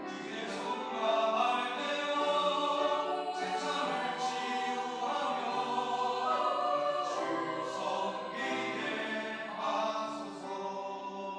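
Church choir singing a worship anthem in sustained, many-voiced phrases, swelling louder about a second in.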